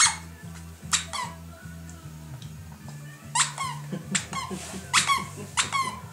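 A West Highland white terrier chewing a squeaky plush Santa Claus toy squeezes it into about six sharp squeaks, each dropping in pitch. Background music with a low, steady bass line plays underneath.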